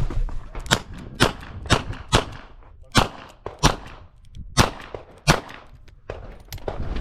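Smith & Wesson 929 revolver firing .38 Short Colt, about eight loud shots in quick succession, several in pairs about half a second apart, with fainter reports between them.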